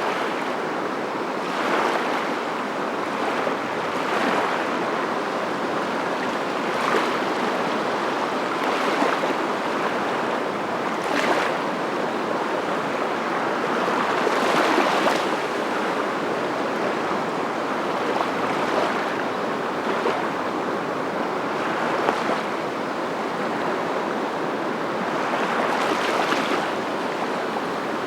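Ocean surf: a steady rush of water that swells and recedes every few seconds as waves break.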